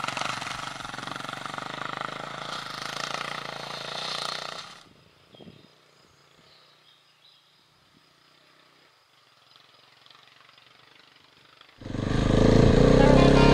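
KTM 690 enduro's single-cylinder engine running as the bike climbs, mixed with wind noise. It cuts off about five seconds in to near silence. Just before the end, loud music starts.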